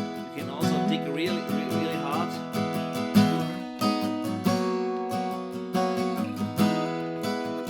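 Atkin L36 acoustic guitar, Sitka spruce top with mahogany back and sides, capoed at the fourth fret and played with a thin pick: chords and single notes picked and left ringing, a new note or chord about every half second.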